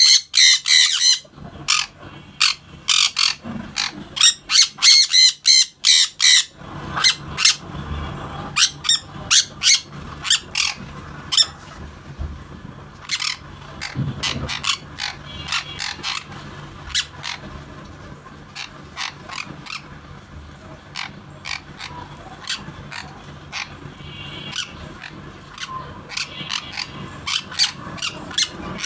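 Sun conure giving shrill, piercing squawks in two loud bursts in the first six seconds, followed by many short, sharp calls or clicks for the rest of the time.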